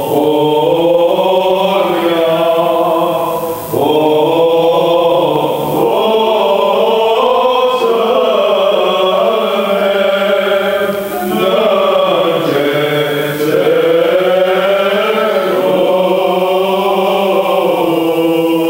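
Men's voices, led by a priest, chanting an Armenian requiem hymn together: a slow, ornamented liturgical chant of long held and gliding notes, sung in long phrases with brief breaks for breath about 4 and 11 seconds in.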